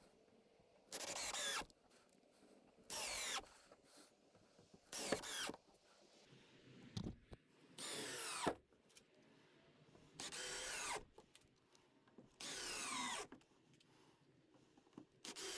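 Power drill working into 2x4 lumber in six short trigger bursts about two seconds apart, its pitch falling during each burst.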